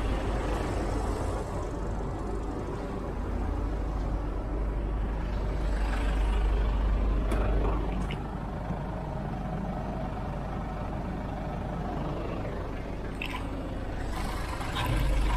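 Mercedes Actros tractor unit's diesel engine idling steadily as a low hum, with a few short clicks and knocks, the last near the end.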